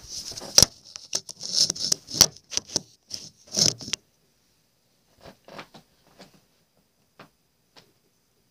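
Handling noise from a phone being picked up and set in place: fingers and fabric rubbing and knocking against the microphone, a rapid run of clicks and scrapes for about four seconds, then a few faint taps.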